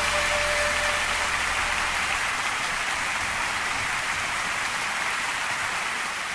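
Concert audience applauding, with the accompaniment's last held note dying away about a second in; the clapping slowly fades.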